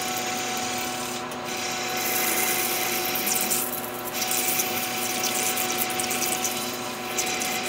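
Metal lathe spindle running while a parting tool cuts a thin washer off a lubricated O1 tool steel bar. A steady machine hum sits under a hissing cutting noise that comes and goes, strongest through the middle.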